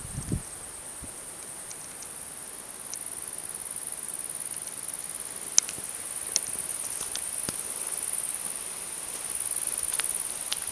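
Steady high-pitched chirring of insects in summer meadow grass, with scattered faint clicks and one sharper click about five and a half seconds in.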